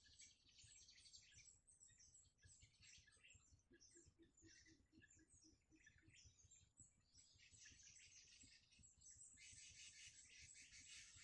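Faint high-pitched bird chirping in quick, scattered bursts. About nine seconds in it thickens into a dense, continuous high buzz.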